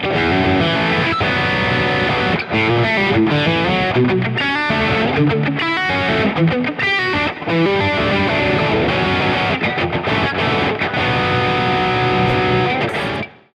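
Fender Player Stratocaster electric guitar played through distortion, a run of quickly changing notes and chords that stops abruptly near the end.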